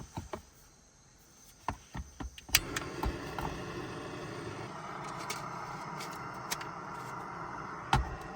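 Light clicks of a spork against a camp cooking pot during stirring. About two and a half seconds in, a sharp click is followed by a steady rushing noise that carries on, with another knock near the end.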